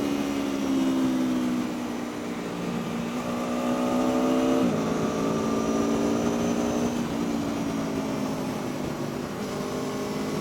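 Aprilia Tuono V4 1100's V4 engine running on the move, over a steady rush of wind. The engine note sinks slowly, drops sharply about halfway through as it changes gear, then climbs again.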